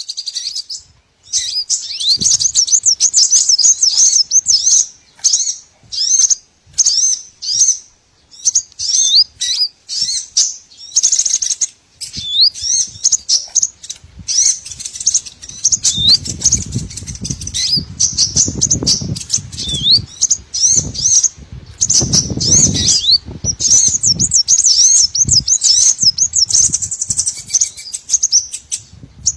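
Dense chattering of small songbirds: rapid, high, twittering chirps that glide up and down, coming in quick runs with short breaks, as used in a lure recording for small birds. A low rumble sits under the calls for several seconds past the middle.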